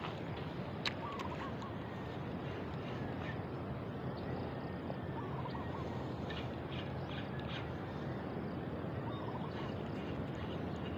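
Steady outdoor background noise with faint animal calls over it: a short wavering call about a second in, again about five seconds in and about nine seconds in, and a few brief higher chirps between six and eight seconds.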